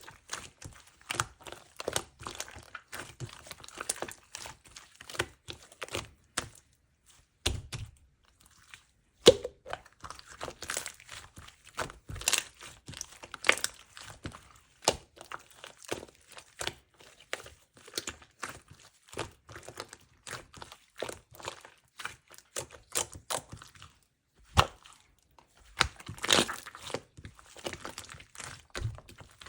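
Two-layer cloud slime being squeezed, stretched and pulled apart by hand, giving a rapid run of small crackling and crunching pops, with a couple of short pauses.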